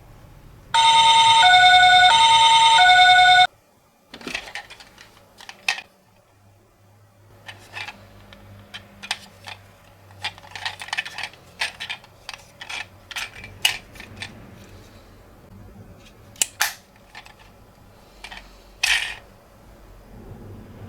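Toy ambulance's electronic hi-lo siren, alternating between a higher and a lower note twice, then cutting off suddenly about three and a half seconds in. After it comes a long run of scattered light clicks and taps.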